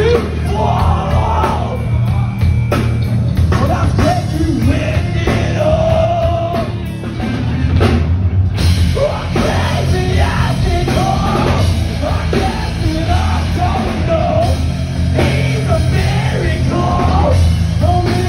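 Post-hardcore metal band playing a heavy rock song: electric guitar, bass and drums, with a lead vocalist singing and yelling over them.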